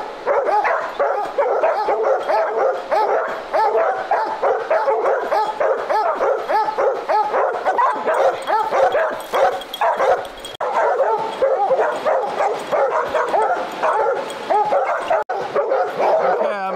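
Several hunting hounds barking and baying nonstop at the foot of a tree, their calls overlapping in a continuous chorus: the tree bark that tells the hunter the bobcat is treed.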